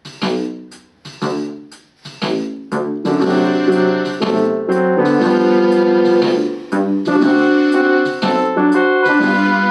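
Keyboard playing chords with a piano sound: short chords struck about once a second, each dying away, then from about three seconds in, chords held and overlapping with no gaps.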